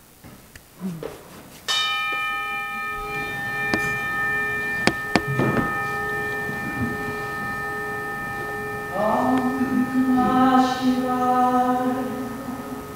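A bell is struck once and rings on with a long, slowly fading tone made of several overtones. A few sharp knocks sound during the ring, and about nine seconds in a woman begins singing over its fading sound.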